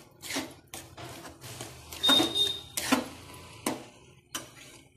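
Spatula scraping and knocking against a steel kadhai as thick gram-flour pithla is stirred and mashed, in short irregular strokes; one stroke about two seconds in rings briefly off the metal.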